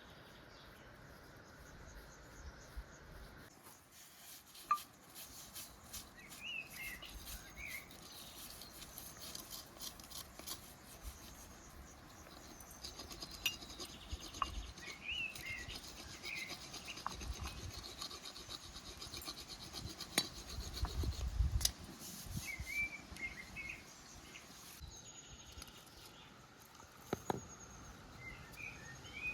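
Quiet handwork sounds: knocks and rustles, and for several seconds in the middle a rapid, even scraping like scrubbing. Small birds chirp briefly a few times.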